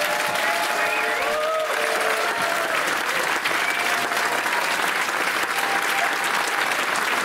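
An audience clapping steadily, with a few voices calling out near the start.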